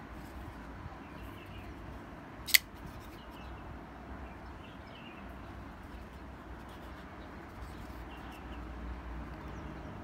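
Kubey Ruckus folding knife's blade flicked open on its caged ceramic ball-bearing pivot, snapping into its liner lock with one sharp click about two and a half seconds in. Faint handling ticks otherwise.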